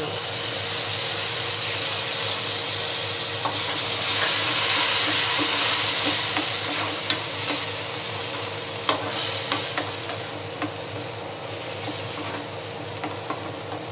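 Tomato purée sizzling as it is poured into hot oil and fried onions in a kadhai, the sizzle swelling and then easing. A metal spoon stirs it, clicking against the pan in the second half.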